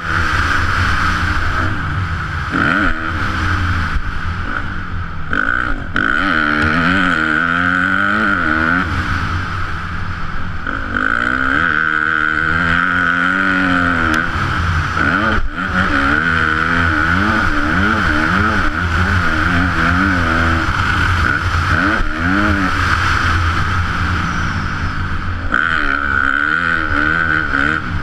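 Yamaha YZ250F four-stroke single-cylinder motocross engine, revving up and down repeatedly as the bike accelerates, shifts and backs off around a dirt track, heard from the rider's helmet.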